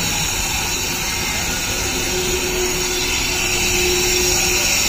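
Electric kharra (mava) mixing machine running steadily, its motor driving the drum that churns the chopped areca nut inside; a faint steady hum comes in about two seconds in.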